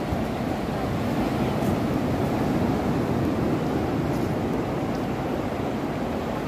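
Ocean surf washing steadily onto a flat sandy beach, mixed with wind rumbling on the microphone; the wash swells a little in the middle.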